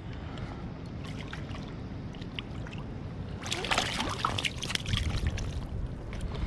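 Water splashing and trickling close by, with a burst of splashing and dripping about halfway through, over a steady low rumble of wind on the microphone.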